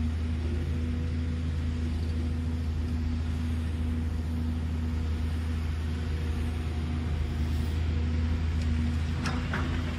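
JCB crawler excavator's diesel engine running steadily with a low drone while the machine digs and swings its load. About nine seconds in come a few sharp knocks as soil and stones drop from the bucket into a dump truck's bed.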